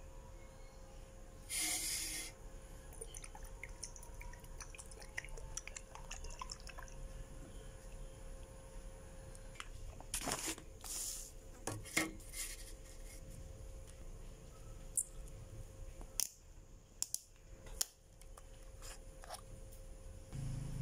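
Small handling noises from hand work on a brass wall hanging and its polish bottle: a brief scrape or rustle about two seconds in, scattered light clicks and taps, a few short rubbing sounds, and a few sharp clicks near the end, over a faint steady hum.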